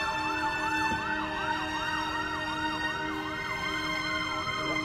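Siren sounding a fast yelp, its pitch rising and falling about three times a second without a break.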